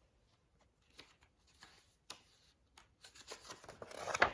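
Picture book pages being handled and turned: a few faint clicks, then paper rustling that builds to its loudest near the end.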